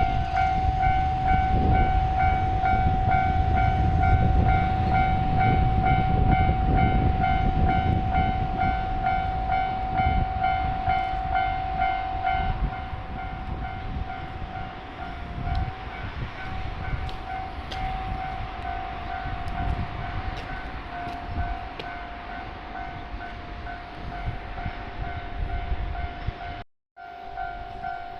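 Japanese level-crossing warning bell ringing steadily in a fast repeating pulse while a train rumbles through the crossing; the rumble is heaviest for the first twelve seconds or so, then eases while the bell keeps ringing. The sound cuts out for an instant near the end.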